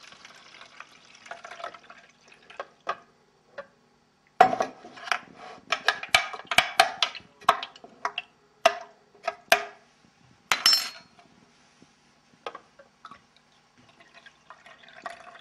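Carrot juice poured from a plastic juice jug through a metal mesh strainer. In the middle a spoon stirs the juice in the plastic jug, giving a quick run of sharp clicks and knocks against the plastic. The pouring resumes near the end.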